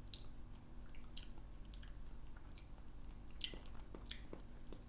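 Faint wet mouth sounds of people tasting apple butter off small spoons: scattered lip smacks and tongue clicks as they chew and savour it.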